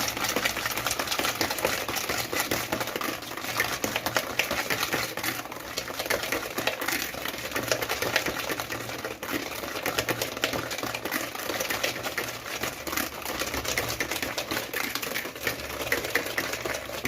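Eggs and sugar being beaten hard in a bowl to dissolve the sugar: a continuous fast rattle of the beater clicking against the bowl, over a faint steady hum.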